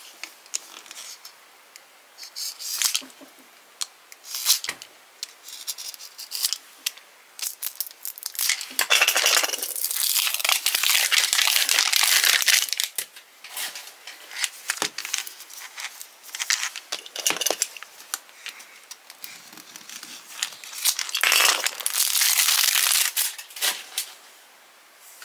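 Thin plastic wrapper crinkling and tearing as it is pulled off a plastic toy surprise capsule, with small scattered clicks and taps of plastic being handled. Two longer stretches of loud crinkling come, one in the middle and one near the end.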